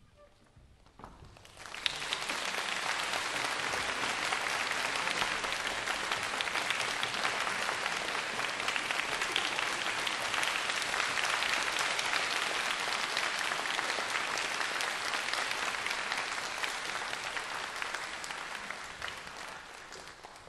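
Audience applause in a concert hall: a few scattered claps about a second in, then full, steady clapping from about two seconds in that thins out near the end.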